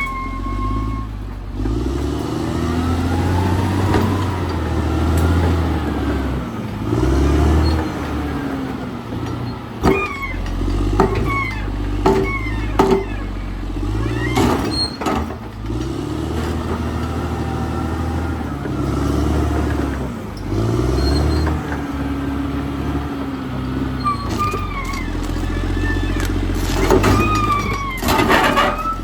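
Caterpillar D6R XL bulldozer's diesel engine working under load, its pitch rising and falling over and over as the machine pushes and backs off. Sharp knocks and clanks come through in the middle and again near the end.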